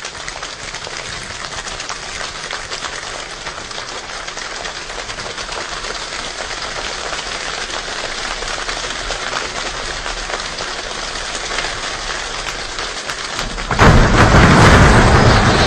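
A group of people imitating rain with their fingers and hands: a dense patter of small clicks that builds steadily like gathering rain, then a sudden much louder burst about fourteen seconds in.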